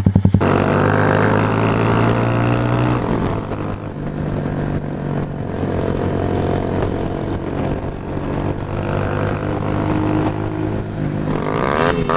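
Motorcycle engine running as the bike rides along, heard from the rider's own machine. Its pitch shifts a few times with throttle and gear changes.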